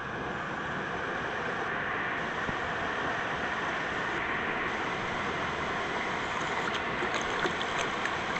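Steady rush of fast-flowing water tumbling over rocks, a stream cascade or waterfall, with a few faint ticks near the end.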